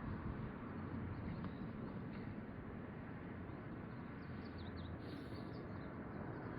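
Outdoor ambience: a steady background hum with faint, high bird chirps scattered through it, a few more about four to five seconds in.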